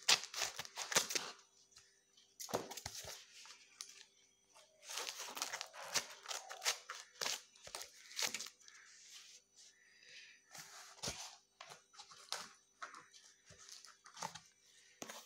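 A cardboard parcel being cut open with scissors: snipping through packing tape and cardboard, with tearing and crinkling in irregular bursts and short pauses between them.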